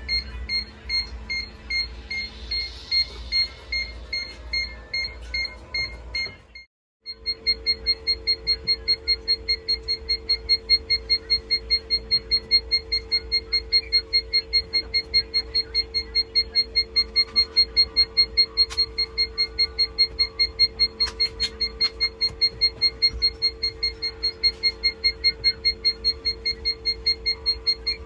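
Electronic alarm beeper of an egg incubator's digital controller sounding rapid, evenly spaced high beeps. It breaks off briefly about seven seconds in, then resumes with a steady hum under it.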